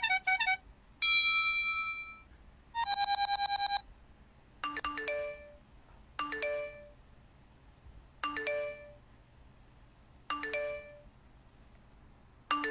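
Electronic chime sound effects. A few quick bell-like notes come first, then a brief fast-pulsing electronic ring about three seconds in. After that, a short rising three-note chime, like a phone ringtone, repeats five times about every two seconds.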